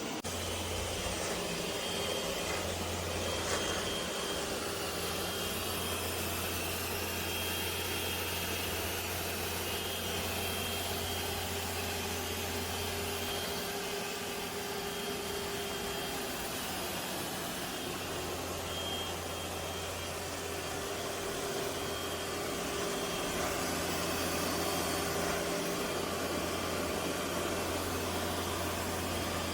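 Roborock S8 Max Ultra robot vacuum running: a steady motor whir with a low hum that fades out for a few seconds midway.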